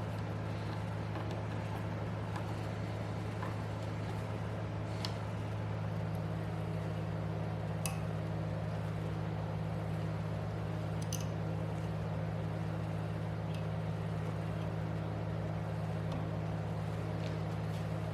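A steady low machine hum with a few faint sharp clicks scattered through it.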